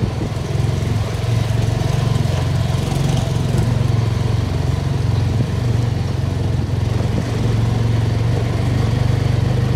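Motorcycle engine running steadily at low road speed, heard up close from on the bike, a continuous low hum with a fast even pulse.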